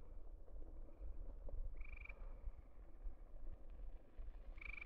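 A frog calling twice: a short, high trill about every three seconds, over a low rumble.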